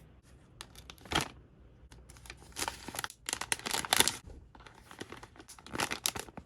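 Plastic packaging crinkling and rustling in irregular bursts, with a few sharp clicks, as Play-Doh, moulds and wrappers are gathered up.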